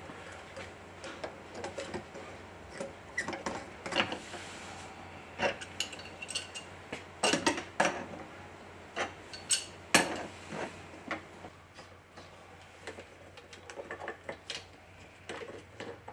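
Irregular clicks and small metallic clinks of corrugated stainless steel flex-line fittings being handled and screwed onto a plastic bypass valve's threaded adapters.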